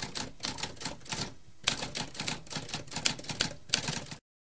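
Typewriter typing: a fast run of key strikes, about five a second, with a short pause a little over a second in. The strikes stop abruptly about four seconds in.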